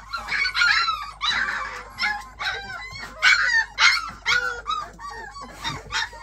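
Young puppies yipping and squealing as they play-fight, a dense run of short, high calls that bend in pitch, several a second and often overlapping.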